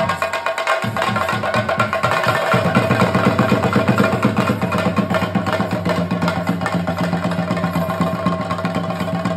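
Chenda drums beaten rapidly with sticks in a fast, dense, driving rhythm, the traditional drumming that accompanies a Theyyam dance. A steady ringing tone holds above the drumming.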